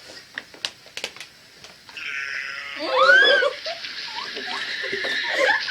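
An animal's wavering cry rising and falling in pitch about three seconds in, played back from a funny video clip, with a few light clicks before it.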